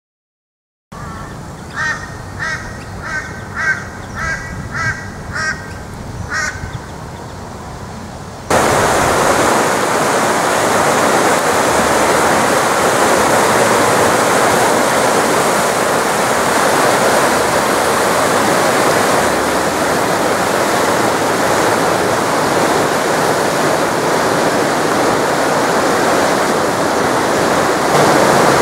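A bird calls about eight times in quick succession over a steady hiss. About eight seconds in, this gives way to the loud, steady rush of brown floodwater pouring through a swollen creek and over rocks.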